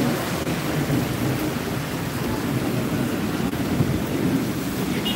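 Heavy rain pouring down steadily, a dense even hiss with a low rumble underneath.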